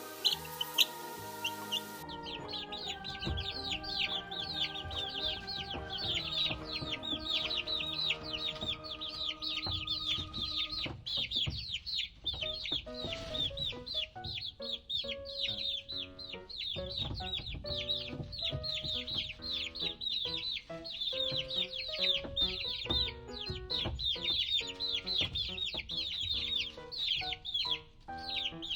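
A flock of chickens and chicks: a dense, continuous chorus of high peeping with clucking, over background music.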